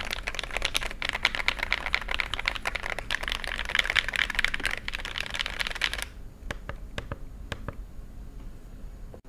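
Typing on a mechanical keyboard fitted with Akko Neon ASA-profile double-shot keycaps, as a sound test. There is a fast, dense clatter of keystrokes, and about six seconds in it drops to a few scattered single key presses.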